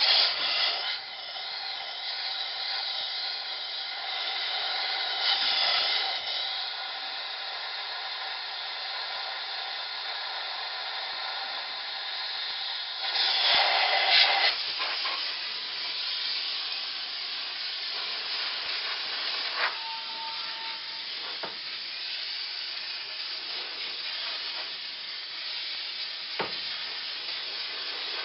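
Portable steam cleaner's jet of steam hissing steadily, with louder surges just after the start, about five seconds in and again around thirteen seconds in. A few faint clicks come later.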